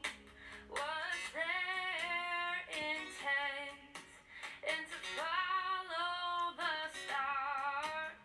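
Background music: a woman singing a song in held, wavering phrases over an instrumental accompaniment.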